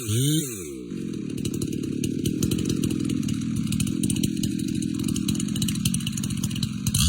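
Stihl MS 881 two-stroke chainsaw blipped up and down in short revs at the start. From about a second in it is held at steady high revs under load, cutting into the tree trunk, and it drops off near the end.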